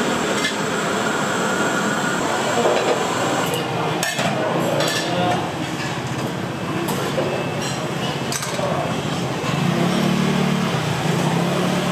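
Restaurant ambience: indistinct chatter with dishes, utensils and cutlery clinking and knocking every second or two.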